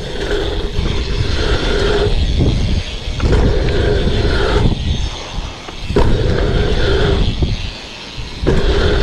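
Wind buffeting a body-mounted action camera's microphone and BMX tyres rolling over packed dirt as the bike rides through a line of dirt jumps. The rumble drops out briefly twice, as the bike leaves the ground over the jumps.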